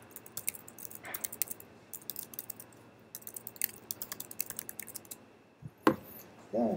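Typing on a computer keyboard: an irregular run of quick key clicks, with one louder key strike near the end.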